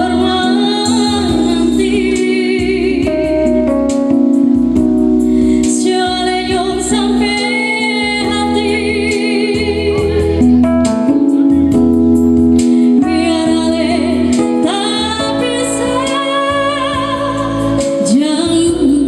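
A woman singing a song live into a microphone over instrumental accompaniment, with long held notes that waver in pitch.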